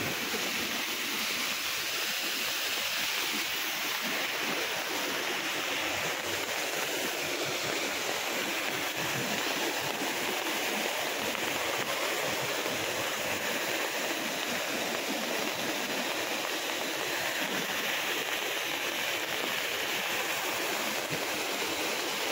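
Rain falling on open water: a steady, even hiss that doesn't let up.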